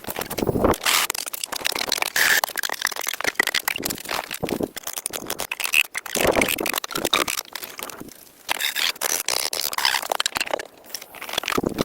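Wood and brush being handled: irregular scraping, crackling and sharp knocks.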